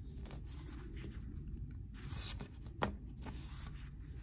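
Sheets of copy paper rustling and sliding against each other as they are handled: soft scrapes and one sharp tick about three seconds in, over a low steady hum.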